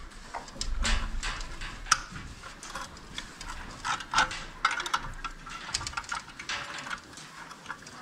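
Hand tools clicking and scraping on the metal parts and fittings of a livestock water cup: an irregular scatter of small clicks and knocks, the sharpest about two seconds in.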